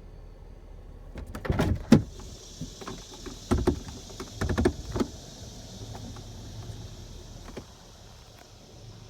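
Tesla Model X auto-presenting front door mechanism grinding as its motor runs: clusters of loud clunks and grinding in the first five seconds over a steady high whir. The door-presenting mechanism has failed.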